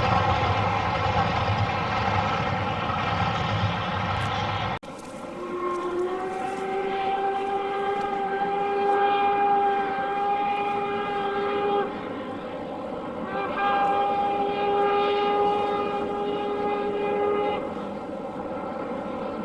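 LMS Black 5 steam locomotive: a loud rumbling running noise for the first few seconds, cut off abruptly. It is followed by two long, steady blasts on a single-note whistle, the first lasting about six seconds and the second about four.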